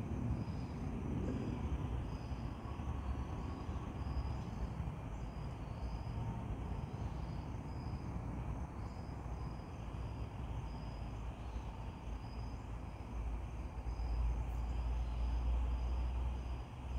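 Insects chirping in a run of short, high notes, about two a second, over a steady low outdoor rumble that swells for a few seconds near the end.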